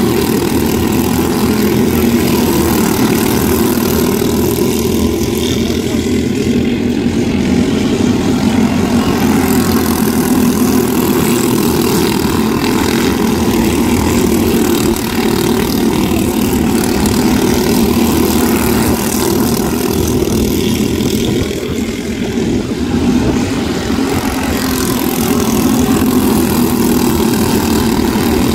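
Quarter midget race cars' small engines running together as a pack laps a dirt oval, a steady loud drone that dips slightly twice as the cars move away.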